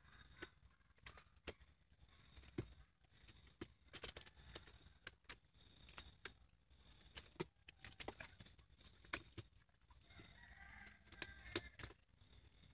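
Faint, irregular clicks, taps and rustles of hands working stakes and nipa palm stems in the mud at the water's edge, with a faint steady high hiss behind them.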